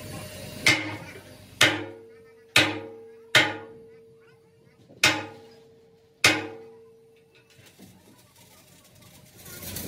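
Hammer blows on a steel part, six sharp strikes at an uneven pace. Each one rings with the same metallic tone, which dies away over about a second.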